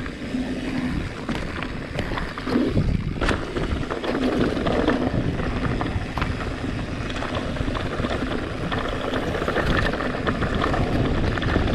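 Specialized Stumpjumper Evo mountain bike descending a rocky trail: tyres running over loose rock, with a steady rumble of wind on the microphone. Frequent small clicks and rattles come from the bike over the rough ground, one sharper knock about three seconds in.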